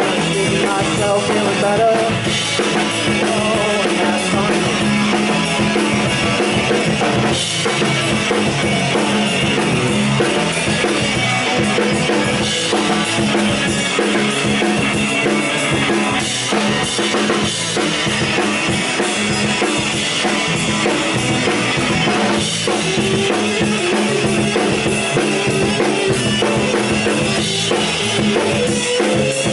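Live rock band playing an instrumental passage without vocals: drum kit with bass drum and snare hits, electric bass and electric guitars.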